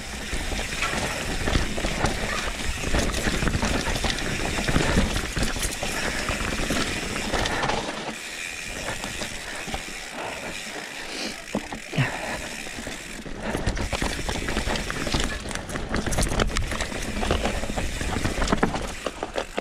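Mountain bike riding down a rough dirt trail: a steady noise of tyres on dirt with the bike clattering and rattling over the bumps, and a sharper knock about twelve seconds in.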